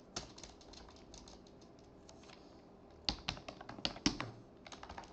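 Typing on a computer keyboard: irregular runs of key clicks, with the loudest, sharpest cluster about three to four seconds in.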